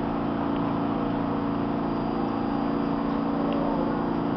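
R46 subway train standing at the platform with its doors open, giving off a steady hum of several low, even tones from its running onboard equipment.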